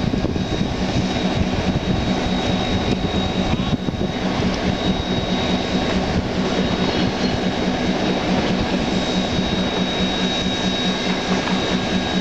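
Steady machinery drone with a constant thin high-pitched whine over it.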